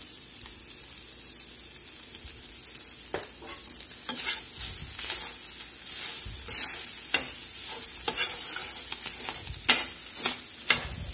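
Seasoned ground pork frying over high heat in a stainless steel skillet, a steady sizzle. From about three seconds in, a spatula scrapes and stirs the meat in the pan, in short strokes that come more often toward the end.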